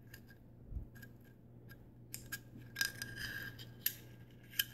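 AR-15 charging handle being slid in the upper receiver and snapping into its groove: a series of small, scattered metal clicks and light scrapes, bunched together a little past the middle.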